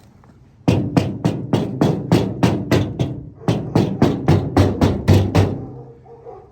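A rapid run of sharp, evenly spaced percussive knocks, about four to five a second, in two runs with a short pause near the middle.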